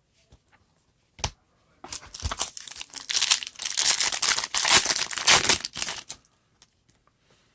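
A wrapper on a pack of baseball trading cards crinkling as it is torn open and handled. There is a single click about a second in, then about four seconds of dense crackling, loudest in the middle.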